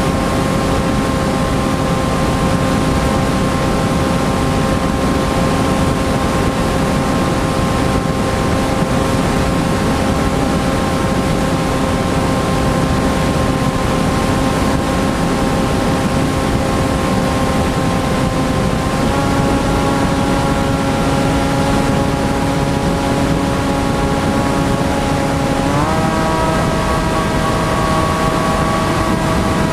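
Electric motor and propeller of a TBS Caipirinha flying wing, heard from the onboard camera: a steady whine over the rush of wind on the microphone. The pitch steps up slightly about 19 seconds in and again, more, about 26 seconds in, as the motor speeds up.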